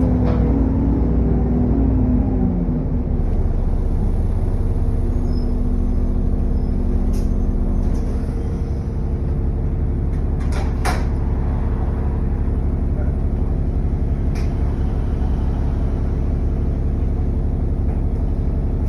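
Bus engine heard from on board, whose pitched whine falls away over the first few seconds as the bus slows, settling into a steady drone. A few sharp clicks or rattles come about a third of the way in, around the middle, and again later.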